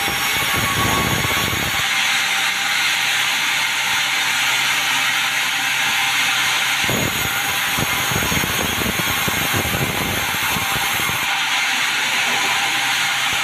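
Sawmill saw running steadily through meranti timber, a continuous loud mechanical noise. Rougher, crackling stretches come in the first two seconds and again from about seven to eleven seconds in.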